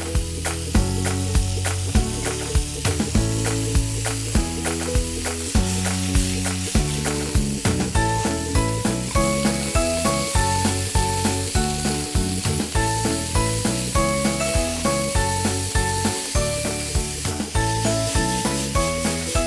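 Background music with a steady beat over chicken pieces sizzling in oil in a frying pan as they are stirred.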